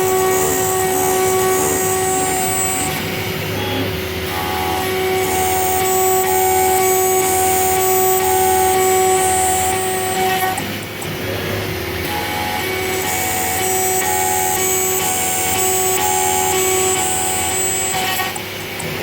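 CNC router spindle at 24,000 rpm running a 3 mm single-flute end mill through 2 mm 5005 aluminium sheet: a steady whine over a layer of cutting noise. The sound dips briefly about halfway through and again near the end.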